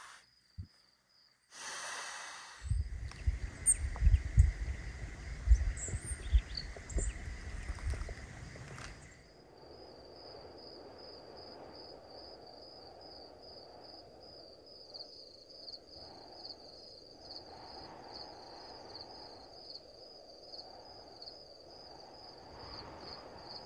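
Wind rumbling and buffeting on the microphone, with a few sharp knocks, for the first several seconds. From about nine seconds in, a quiet outdoor hush with a faint, steady, high-pitched insect trill.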